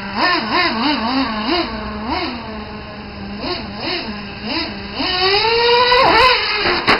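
Traxxas T-Maxx 3.3 nitro RC truck's small two-stroke glow engine idling, then blipping up and down in short revs as the truck drives. About five seconds in it climbs in one long rev, drops off sharply, and a few sharp knocks follow near the end.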